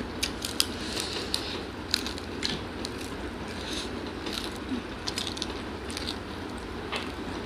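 Mouth sounds of people chewing food close to the microphone: irregular crisp clicks and crackles of crunching, the sharpest about half a second and two seconds in, over a steady low hum.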